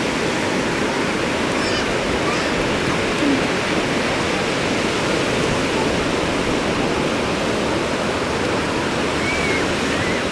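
Ocean surf washing up the beach: a steady, even rushing of waves.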